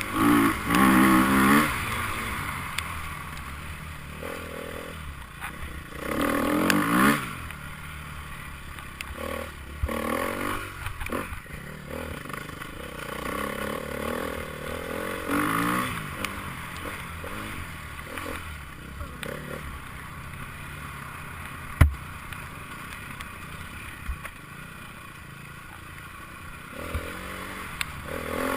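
Enduro motorcycles passing and revving, loudest in bursts near the start, about six seconds in and about fifteen seconds in, with engine pitch rising and falling as they go by. A single sharp knock about twenty-two seconds in.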